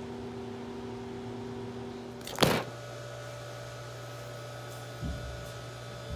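A camera falls as its makeshift holder gives way and hits something with one sharp knock about two seconds in, then a softer thump near the end. A steady electrical hum runs underneath.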